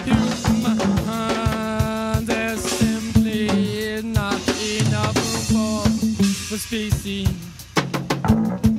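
Experimental rock band playing without vocals: a drum kit with bass drum and snare under sustained, wavering pitched notes; the drumming thins out in the middle and picks back up near the end.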